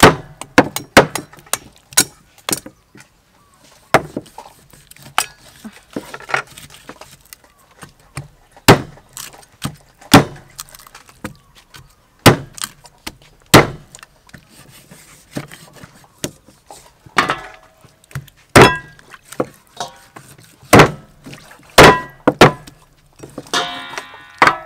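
Steel cleaver chopping through a raw pork leg and trotter on a thick wooden chopping block: a long run of sharp chops at irregular spacing, some coming in quick pairs.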